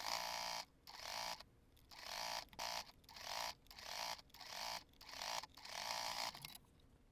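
Electric sewing machine stitching in short start-stop runs, about nine runs of under a second each with brief pauses between, sewing bias-tape binding over a seam allowance.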